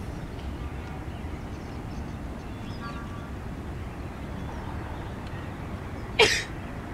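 Steady low outdoor background rumble. About six seconds in, one short, sharp throat-clearing sound, the loudest thing heard.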